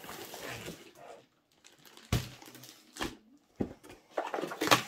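Diamond-painting kit being unpacked by hand: the cardboard box and the plastic-wrapped canvas roll are handled and set on a table. There is a knock about two seconds in, a couple of lighter clicks, and a louder burst of plastic crinkling and knocking near the end.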